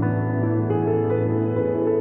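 Background music: calm ambient instrumental with soft sustained chords and gently changing notes.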